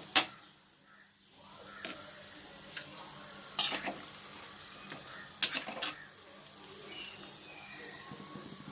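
Chicken pieces frying in oil in a pan with a steady sizzle, while a spatula stirs and knocks against the pan several times. The sizzle drops away briefly just after the first knock.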